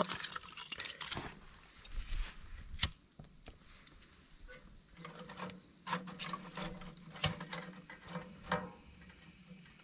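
Cherry-wood kindling sticks and paper being handled in the steel firebox of a small wood stove: scattered dry clicks, knocks and rustles, with one sharp knock about three seconds in and another run of clicks in the second half.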